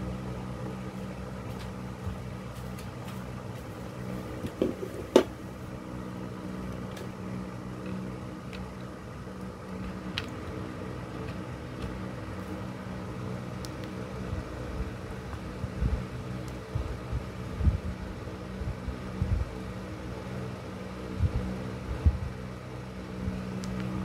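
Steady motor hum, like a running fan, with a sharp click about five seconds in. Soft knocks and taps of handling follow in the second half as a charging cable is plugged into the mini fan's port.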